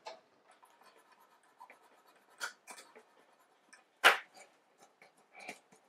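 Scattered clicks and scratchy taps of a French horn's rotor lever and linkage being worked back and forth by hand, the rotor stiff and barely turning. One sharper metal click about four seconds in stands out.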